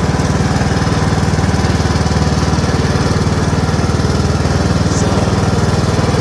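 Riding lawn mower's engine running steadily under way, a loud, even, rapid chugging.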